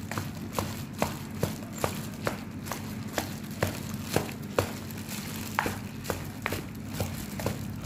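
Wooden chopsticks clacking against a plastic mixing bowl about twice a second as they stir a wet filling of minced pork, egg and shredded taro for spring rolls.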